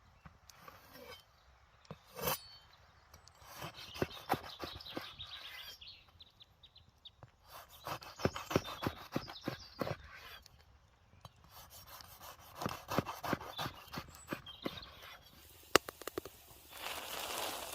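Close-up handling sounds of campfire cooking: bursts of rustling, scraping and crackling clicks that come and go every few seconds, with a steadier hiss near the end.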